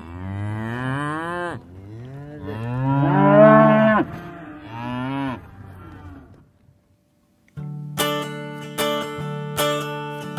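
A cow mooing three times, each long call rising and then falling in pitch, the second one loudest. After a short pause, acoustic guitar strumming starts about seven and a half seconds in.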